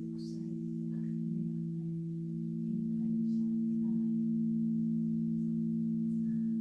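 Several Crystal Tones alchemy crystal singing bowls ringing together, holding overlapping steady low tones that swell slightly about three seconds in.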